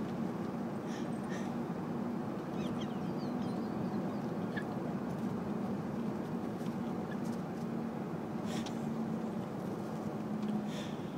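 Steady road and engine noise inside a moving car's cabin, with a constant low hum and a few faint short clicks.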